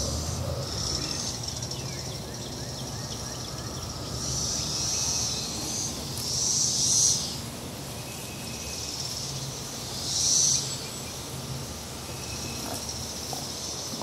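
Periodical cicadas (Brood X) calling from the trees: a steady high buzzing chorus with three louder buzzes that swell and fade, about four, six and ten seconds in.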